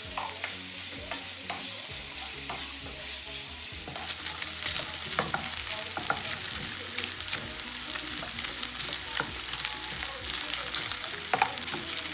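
Pork belly pieces sizzling and crackling in olive oil in a frying pan, stirred with a wooden spoon, as the meat browns. The sizzle gets louder and more crackly about four seconds in.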